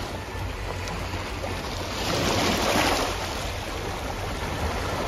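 Sea waves washing against a rocky shore, one surge swelling louder about two seconds in and then falling back.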